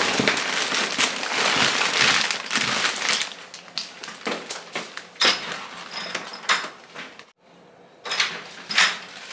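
Plastic grocery bags rustling and crinkling as full bags are set down, followed by a few scattered light knocks and taps.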